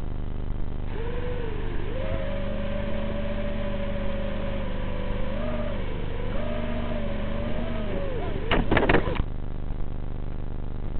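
Whine of a remote-controlled vehicle's small electric motor, rising and falling in pitch with the throttle for about eight seconds. It ends in a brief clatter of knocks as the vehicle comes to rest in gravel.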